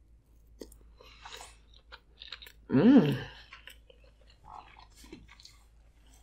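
A person chewing a mouthful of sushi roll close to the microphone: soft wet chewing with small crunches and clicks. About three seconds in comes a short hummed "mm", the loudest sound.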